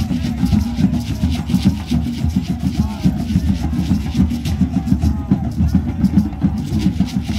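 A drum circle: many hand drums played together in a steady, fast, dense beat.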